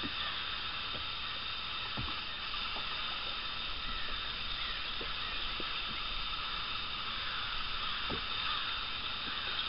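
Steady hiss with faint lapping water, broken by a few soft, short knocks.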